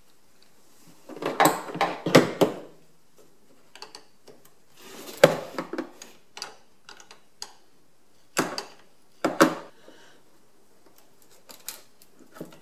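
Metal clicks and clinks of a hand wrench loosening the clamp bolt on a car battery's negative terminal. They come in several short rattling bursts, about a second in, around five seconds and around eight to nine seconds, with lighter ticks between.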